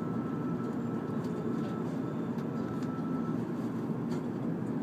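Steady low hum inside the cabin of an N700-series Shinkansen car at a station platform, with a faint high whine that stops about three seconds in.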